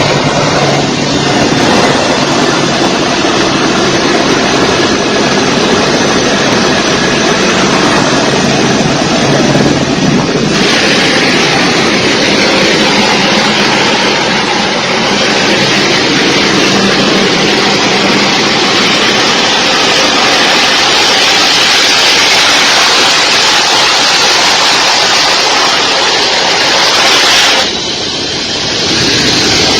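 Jet aircraft engines running loud, a steady roar with no clear tones. The sound changes abruptly about ten seconds in, with more hiss, and drops briefly near the end before coming back.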